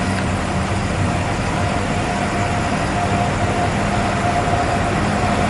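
Intercity bus engine running close by as the bus pulls out, a loud steady rumble with a thin steady whine above it.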